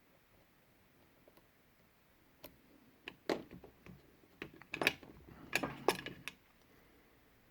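Lock pick and tension wrench clicking and scraping inside a brass Yale padlock as its pins are worked. Quiet at first, then a run of sharp metallic clicks and short scrapes from about two and a half seconds in until just past six seconds.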